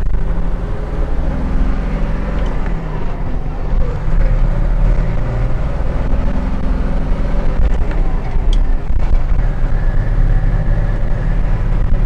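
School bus diesel engine pulling under load inside the cab as the bus accelerates through the gears of its six-speed Spicer manual transmission. The engine note drops out briefly a couple of times at the gear changes.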